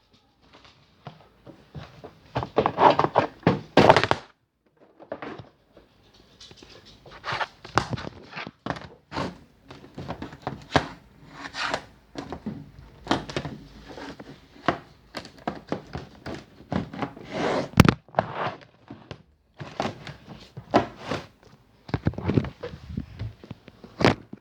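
Irregular knocks, thunks and clatter of small objects being handled, moved and set down on a hard surface, some quick runs of clicks between them.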